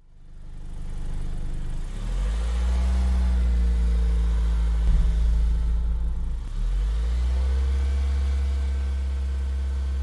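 Car engine running while driving, fading in at the start. Its pitch rises and levels off about two seconds in, and again after a brief dip near seven seconds, as it accelerates.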